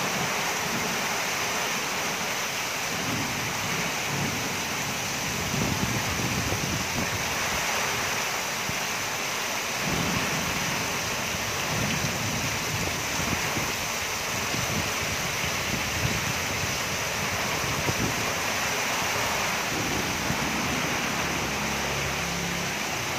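Heavy tropical downpour: a steady, dense hiss of pouring rain, with gusts of wind buffeting the microphone in irregular low rumbles.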